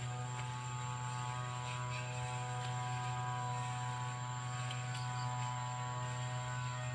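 Stihl 070 two-stroke chainsaw idling steadily between cuts.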